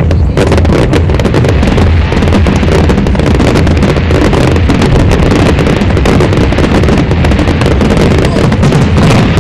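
Fireworks display: a dense, continuous barrage of shell bursts, rapid pops and crackles over a heavy low rumble.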